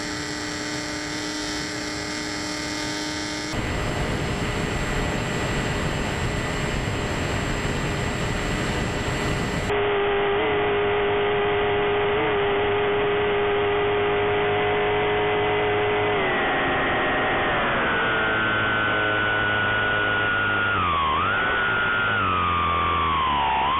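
Bixler 3 RC plane's electric motor and propeller whining with wind rush. The pitch holds steady, then falls and wavers from about two-thirds in as the throttle is eased back, with the flaps down.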